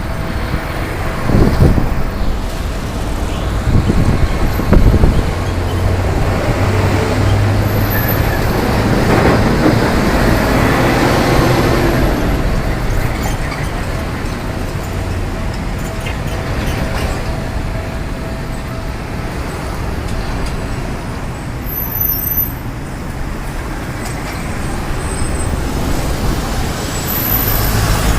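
Road traffic at a busy street intersection: cars and heavier vehicles passing and idling, with louder low rumbles of passing vehicles about one and a half and four to five seconds in.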